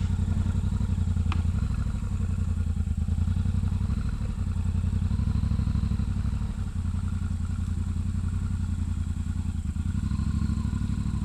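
Enduro motorcycle engine running steadily at low revs, with no revving. There is one sharp click about a second in.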